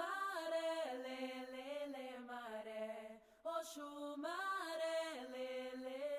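Background music: a single voice singing long held notes in a slow, chant-like melody, in two phrases with a short break about halfway through.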